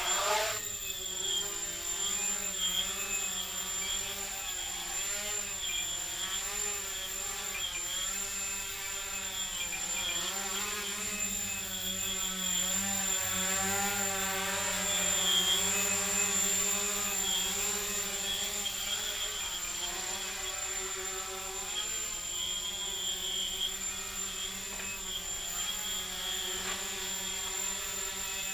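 Micro quadcopter's four small brushless motors spinning carbon-fibre propellers in flight: a steady buzzing whine whose pitch wavers up and down as the throttle changes.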